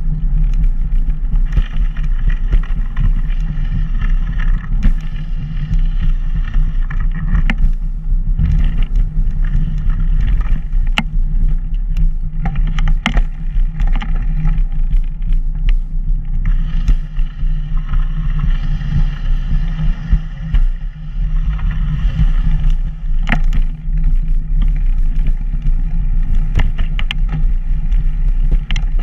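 Steady low wind rumble buffeting the microphone of a moving action camera, with scattered sharp knocks and rattles.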